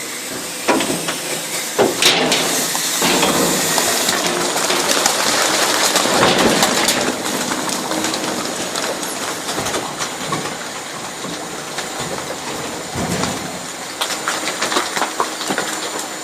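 Garbage truck compactor crushing trash bags, with sharp pops as the bags burst and a dense rushing noise that is loudest from about two to seven seconds in.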